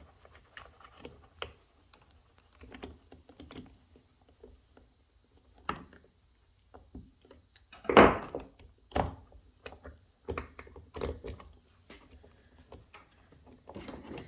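Needle nose pliers and rubber fuel lines being worked onto the nipples of a string trimmer carburetor: scattered light clicks and taps, with a louder knock about eight seconds in and a few more soon after.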